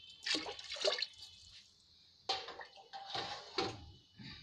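Water poured from a glass into a pressure cooker of dal, splashing into the liquid in a few separate pours with short pauses between.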